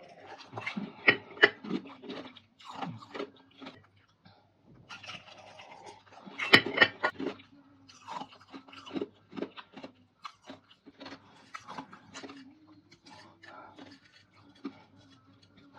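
Close-up crunching and chewing of dried fruit and vegetable pieces: irregular crisp crackles and snaps in clusters, the loudest burst about six and a half seconds in, over a faint steady hum.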